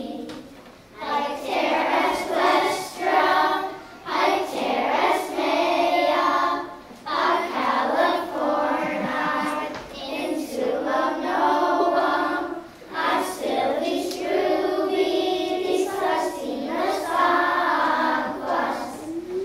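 Children's choir singing together, in phrases of a few seconds with short breaks between them.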